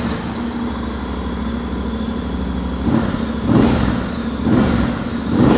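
Honda X-ADV 750's 745 cc parallel-twin engine with a 270-degree firing order, running through its stock exhaust. It idles steadily, then takes several quick throttle blips from about three seconds in, with an uneven, rough beat like a V-twin.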